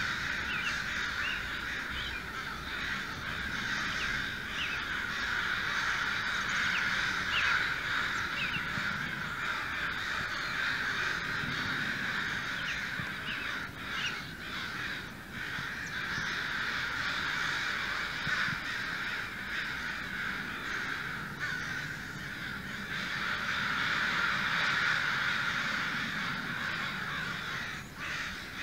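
A large flock of crows cawing continuously, many calls overlapping into a steady din.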